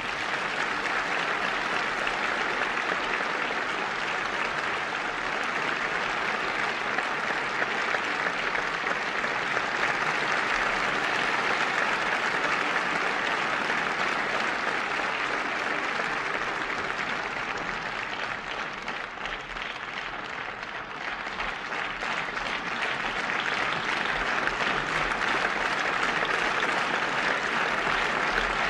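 Theatre audience applauding steadily. The applause eases off a little about two-thirds of the way through and picks up again near the end.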